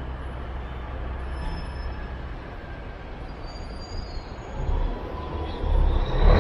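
City street traffic noise: a steady low rumble of vehicles, growing louder near the end as a vehicle comes closer.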